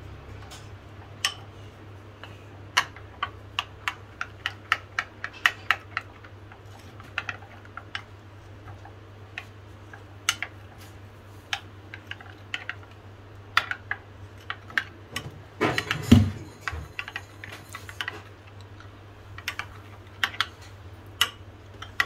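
Steel spoon clinking and tapping irregularly against a small white bowl while stirring milk powder and custard powder into cold milk to a lump-free paste. There is one louder knock about two-thirds of the way through, over a low steady hum.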